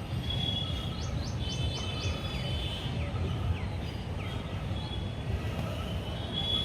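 Steady low rumble of outdoor background noise, with high bird chirps sweeping downward several times in the first few seconds.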